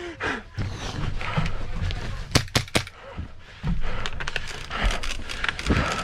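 Airsoft gun firing a quick burst of about four sharp shots within half a second, a couple of seconds in, over steady rustling movement and a few faint knocks.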